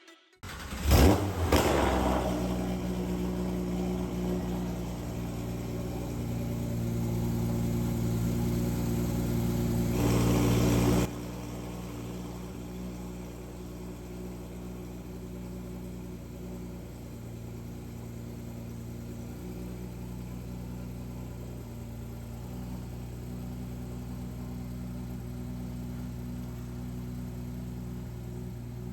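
Porsche 991.2 GT3's 4.0-litre flat-six starting through a titanium Valvetronic exhaust, catching with a sharp rev flare about a second in, then idling. About eleven seconds in the sound drops suddenly and settles into a quieter, steady idle.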